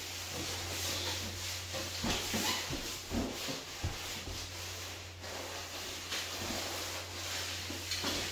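Wood stain being brushed onto bare pine floorboards in irregular scratchy strokes, with a few light knocks on the boards and a steady low hum underneath.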